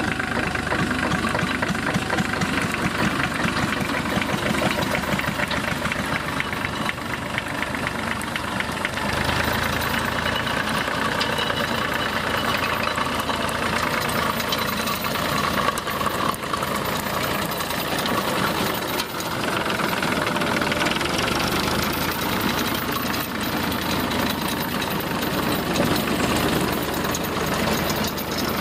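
Vintage red International Harvester (McCormick) tractor engine running steadily while the tractor pulls a mid-mounted implement through the soil.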